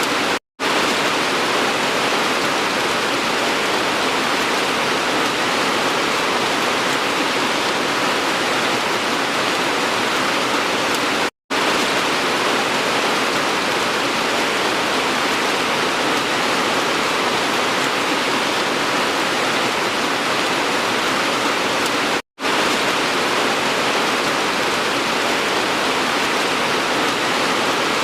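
Steady rain, an even hiss with no single drops standing out. The sound cuts out completely for a split second three times, about eleven seconds apart.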